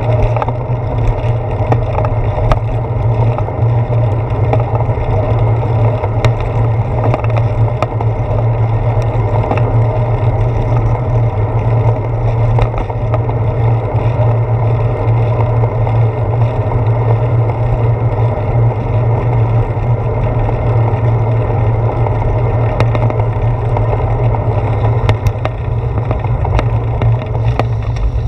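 Steady low rumble of a bicycle rolling over pavement, picked up through a handlebar-mounted GoPro Hero 4 as road vibration and wind noise, with scattered small knocks from bumps.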